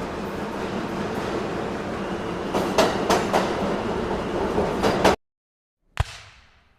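A steady mechanical rumble with a low hum, with a cluster of sharp clanks about three seconds in, cut off abruptly after about five seconds. After a second of silence comes a single sharp hit with a short ringing decay.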